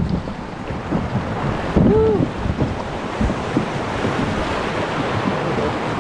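Whitewater rapid rushing around a plastic canoe, with wind on the microphone and a few knocks as the hull strikes the water and rocks while the canoe is spun around.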